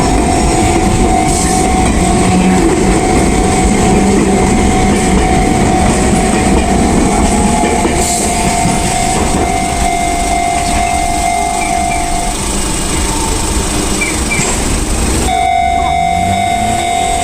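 An Enoden electric train runs over a level crossing with a loud running rumble while the crossing's warning bell rings steadily. The bell breaks off about twelve seconds in and sounds again about three seconds later, when the train noise drops away suddenly.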